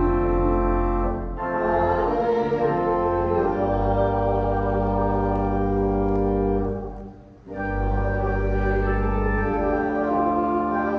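Organ music in slow, held chords, breaking off briefly about seven seconds in between phrases.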